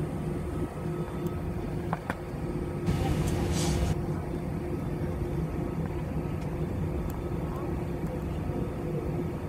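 Cabin noise inside an Airbus A320 taxiing: a steady engine hum over a low rumble, with a brief hiss about three seconds in.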